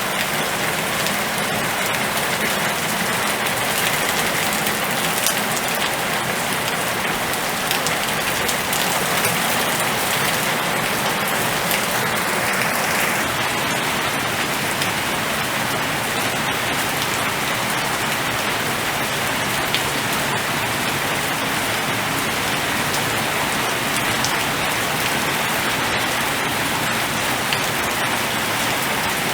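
Steady rain falling during a storm: an even, unbroken hiss of rain on surfaces, with scattered individual drop ticks.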